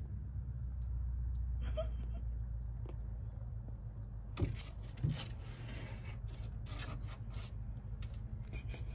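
A cat purring, a steady low rumble. From about four seconds in there are scratchy rubbing and scraping sounds and two soft knocks as the kitten nuzzles and nibbles at the mother cat's ear.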